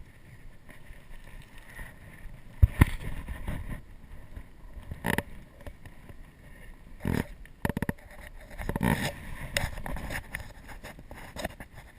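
Irregular knocks and thumps over a low background of handling noise, the heaviest a deep thump about two and a half seconds in, with several lighter knocks later.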